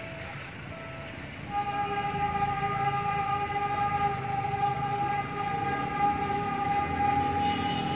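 Train horn sounding one long, steady, unbroken note that comes in about a second and a half in and is held throughout, from a train approaching out of sight down the line.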